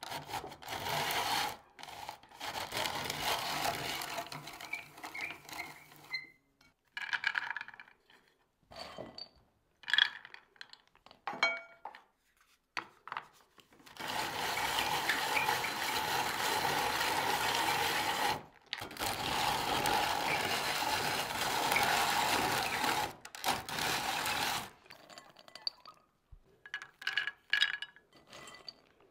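Hand-cranked rotary drum grater grinding hazelnuts: a steady rasping grind in long runs while the handle turns, the longest lasting about nine seconds. Between the runs come quieter pauses with scattered sharp knocks and clinks.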